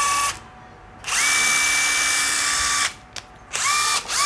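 Panasonic EZ7270 cordless impact driver's brushless motor run free with no load. There is a brief whir at the start, then a trigger pull of nearly two seconds whose whine rises as the motor spins up and then holds steady, then two quick blips near the end.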